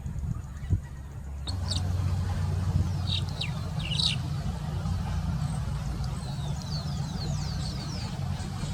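A songbird calling: a few short, high chirps, then a quick run of falling whistled notes, over a steady low hum.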